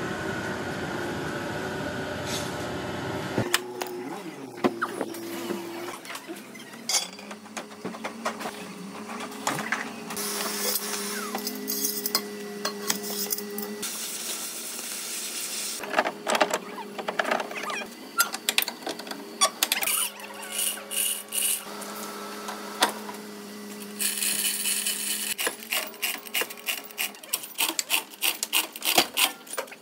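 Collision-repair work on a car's crushed rear body: a gas cutting torch hissing against sheet metal, and metal tools knocking and clanking on the panel. Near the end there is a dense run of rapid clicks and knocks as a chain is rigged to pull the panel out.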